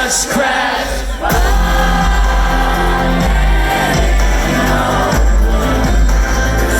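Live rock band playing with a lead vocal and crowd singing along, under heavy sustained bass, recorded loud from the audience.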